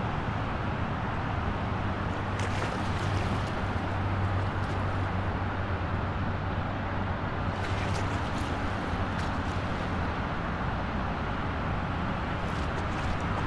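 Steady highway traffic noise heard near a waterfront: a constant rush of vehicles with a low engine hum, and a few brief hissing swells of passing vehicles.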